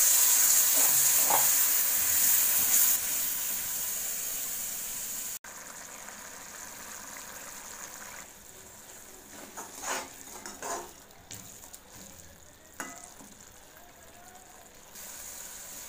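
Tomato puree sizzling loudly in hot oil and onion masala in a metal kadhai, the hiss dying down over the first few seconds. After a sudden break, a quieter bubbling sizzle follows, with a few scrapes of a spatula stirring the thickening masala in the pan.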